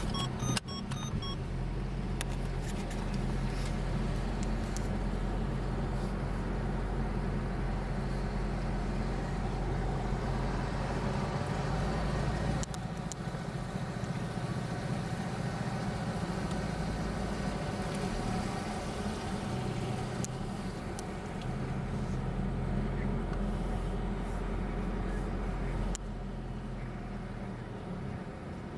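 Car engine and tyre noise heard from inside the cabin while driving slowly, a steady low hum. The level dips slightly about halfway through and again near the end.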